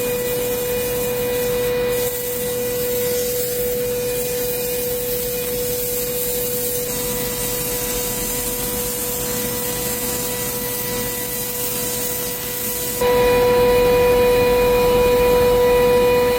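Running machinery: a steady hum with a constant hiss, getting louder about thirteen seconds in.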